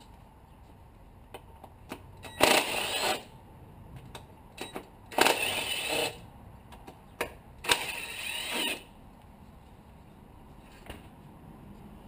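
Cordless power driver running in three short bursts of about a second each, with a rising whine, loosening the bolts that hold the engine's coil packs. A few light clicks and knocks of tools and parts come between the bursts.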